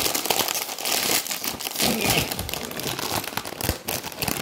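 A plastic crisp packet being pulled open by hand, crinkling and crackling as the sealed top tears apart.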